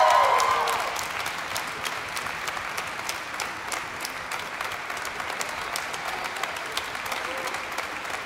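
Concert-hall audience applauding steadily, with a few voices calling out that fade within the first second.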